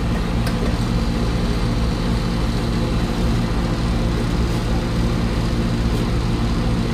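An engine running steadily, a low even drone with a couple of faint clicks over it.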